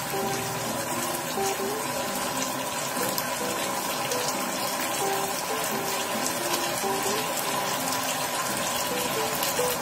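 Tomato-sauce gravy with onions and chillies sizzling in a frying pan on a gas stove, a steady hiss. A simple background-music melody plays over it.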